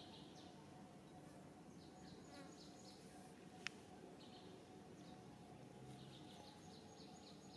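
Near silence: faint outdoor ambience with a few short runs of quick high chirps and a single sharp click about halfway through.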